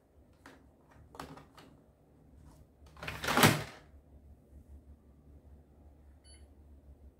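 Plastic paper guides of a Canon GX6010 printer's paper cassette clicking as they are slid into place, then the cassette pushed into the printer with a sliding knock about three seconds in. Near the end, one short faint beep from the printer's control panel as a button is pressed.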